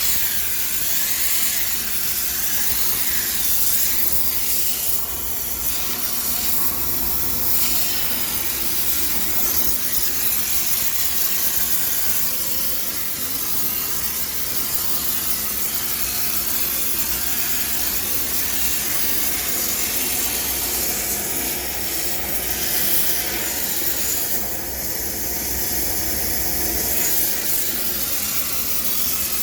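High-pressure steam cleaner jetting steam into a washing machine with a steady hiss, sterilising it.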